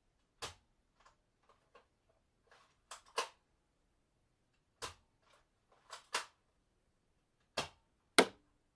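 Gun sound effect: a series of sharp, short cracks and clacks, several in quick pairs, with faint clicks between them. The last one, near the end, is the loudest.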